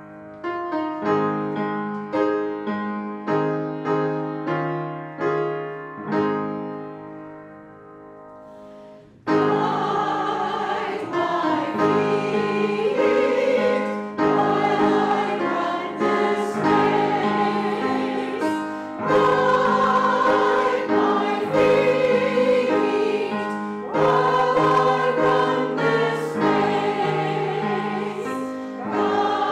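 Piano introduction to a worship song, chords struck about once a second and then a held chord fading away. About nine seconds in, a choir enters singing with the piano.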